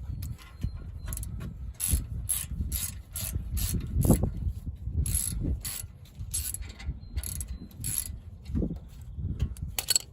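Hand ratchet clicking in a run of quick strokes with short pauses, backing out a brake caliper guide pin with a T45 bit.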